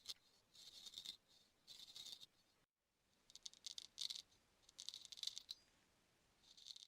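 Faint, crisp scratching strokes of a grooming tool working inside the ear, about one a second, broken by a brief dead silence near the middle.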